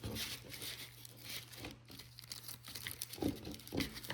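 A package of new engine gaskets being torn open and handled, the packaging crinkling and rustling in irregular bursts, with a couple of louder handling noises near the end.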